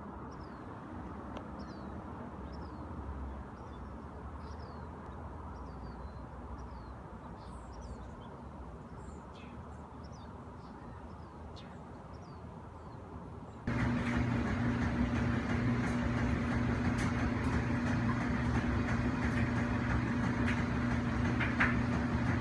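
Outdoor background noise with scattered short, high bird chirps. About fourteen seconds in, it switches abruptly to a louder, steady mechanical hum with a low drone and a few faint clicks.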